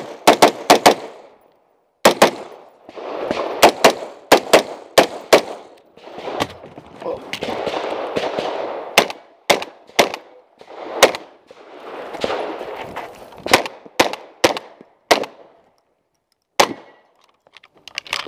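Gunshots close to the shooter: an AR-style carbine fired in quick strings of several shots, then single shots more spaced out, with a handgun in use near the end.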